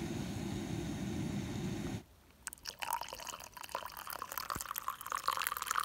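A remote-canister camping gas stove burns with a steady low rush under a collapsible kettle for about two seconds. After a brief gap, hot water pours from the kettle into a plastic mug, trickling and splashing as it fills.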